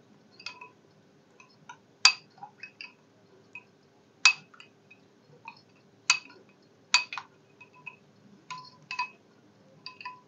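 Metal spoon stirring liquid in a glass bowl, clinking against the glass a dozen or so times at irregular intervals, each clink ringing briefly.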